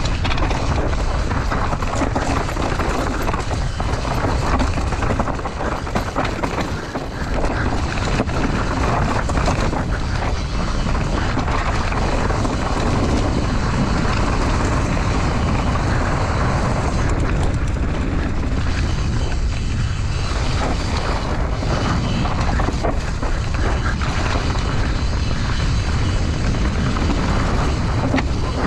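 Enduro mountain bike descending a rocky, loose dirt trail at race pace: wind rumbling on the rider-mounted camera's microphone, tyres crunching over gravel and stones, and a constant run of small knocks and rattles from the bike.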